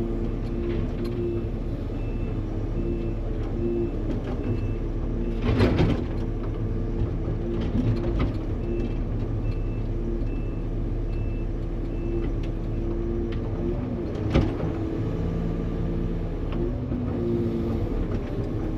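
Engine of a log-grappling machine running steadily, with a reversing alarm beeping at a steady pace in two runs, and two loud knocks, about six seconds in and near fourteen seconds, as logs are handled.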